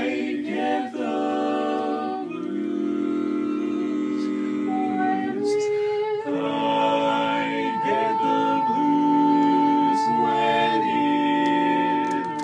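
Men's barbershop quartet singing a tag a cappella in close four-part harmony, moving through held chords. From about six seconds in, one high voice holds a steady note over the changing chords below it.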